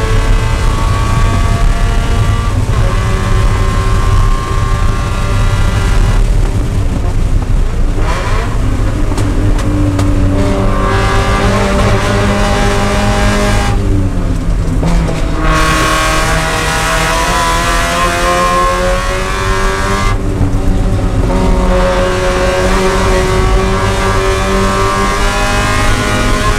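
Spec Miata's four-cylinder race engine heard from inside the cockpit, running hard at high revs on track. Its pitch rises and falls through the lap, and three times the harsher top of the sound drops away for a second or two.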